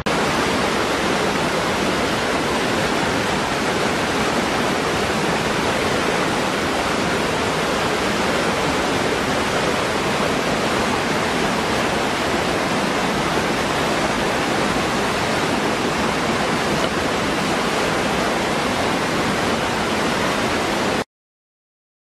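Waterfall pouring into a rocky pool: a steady, even rush of falling and splashing water that cuts off suddenly about a second before the end.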